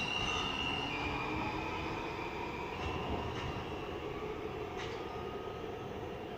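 New York City subway train pulling away and receding, its electric traction motors whining in tones that shift in steps over the rumble of the cars. The sound gradually fades as the train moves off.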